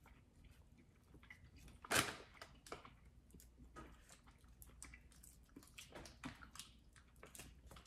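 Faint chewing and the soft rustle of paper candy wrappers being peeled from chewy candy sticks, with scattered small clicks and one louder short sound about two seconds in.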